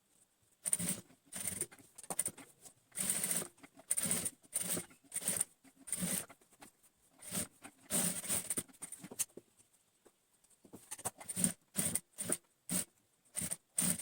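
Cloth being handled: irregular rustling and scraping in short bursts, with a few sharp clicks and a lull about two-thirds of the way through.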